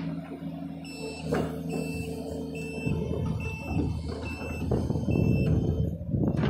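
John Deere excavator's diesel engine running, with a reversing alarm beeping six times at an even pace, a little under a second apart. The engine grows louder and rougher about halfway in, as if working under load.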